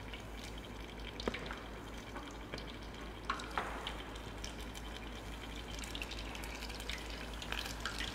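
Battered pig's trotters frying in hot oil: a steady, quiet sizzle with occasional spatter, and a few sharp clicks of kitchen utensils.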